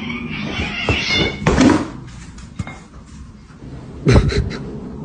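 A house cat vocalising, with sudden louder noises about a second and a half in and again near four seconds.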